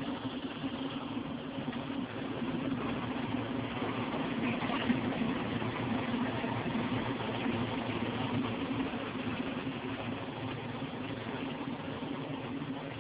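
Circular stainless-steel sand vibrating screen running: a steady, unbroken machine hum with an even noisy wash over it as wet sand is shaken across the mesh.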